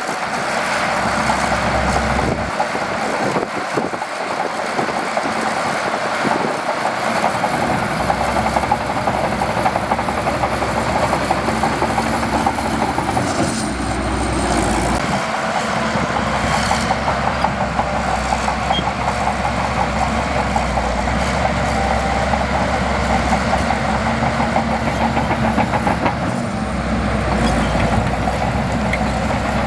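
Shantui DH17C2 bulldozer working: its diesel engine runs steadily under load with a fast metallic clatter from the tracks, the engine note shifting as the load changes about halfway through and again near the end. A thin high whine wavers above it.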